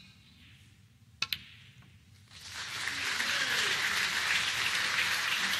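A sharp double click of snooker balls striking a little over a second in, then audience applause swelling up about a second later and carrying on steadily: the crowd applauding the century break.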